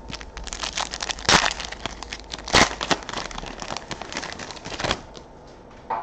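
Foil wrapper of a basketball trading card pack being torn open and crinkled by hand: a dense run of crackles with two louder ones about one and two and a half seconds in, stopping about five seconds in.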